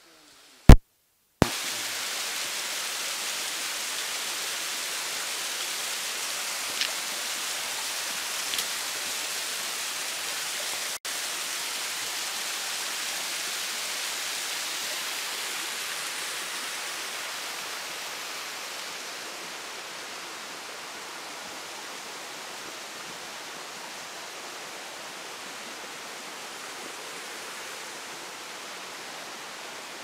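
Steady rushing of a waterfall, a dense even hiss that eases slightly in level about two-thirds of the way through. It is preceded by a sharp click about a second in, and a second click just as the water sound begins.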